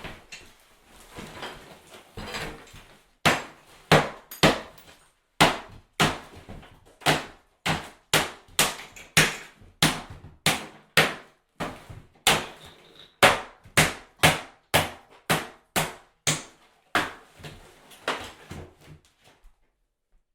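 Hammer blows during demolition of tile and drywall: a few softer knocks, then about three seconds in a long run of sharp, steady strikes, about one and a half a second, that stop shortly before the end.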